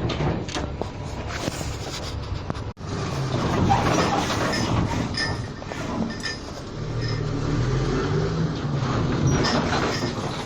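A vehicle running: a steady rumble with some clattering over it. It cuts out for an instant about 3 s in.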